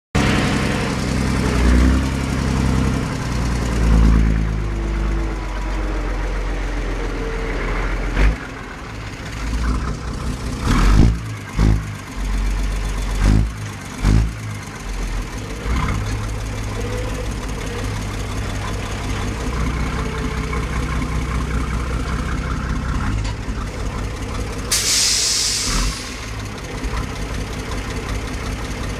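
Roman truck's diesel engine heard at its vertical exhaust stack, running with a changing note at first, then several sharp revs, then settling to a steady idle. About 25 seconds in, a sudden hiss of compressed air lasts about a second.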